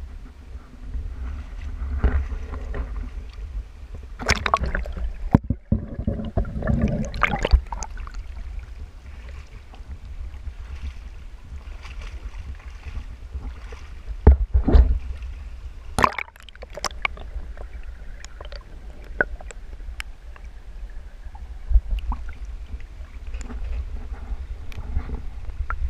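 Wind buffeting the microphone in a steady low rumble, with several sharp knocks and clatters from carried gear: a plastic bucket, a wooden board and a metal tool. A small rocky stream runs underneath.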